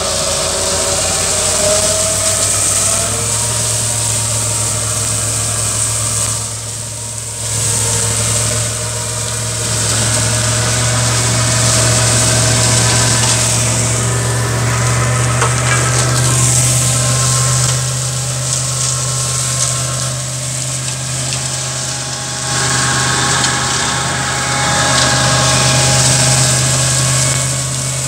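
Tractor engine running steadily under load, driving a STARK KM175H PTO flail mower whose 28 hammer flails on the spinning rotor are cutting and mulching tall grass: a steady low engine drone under a broad whirring hiss, briefly dipping in loudness twice.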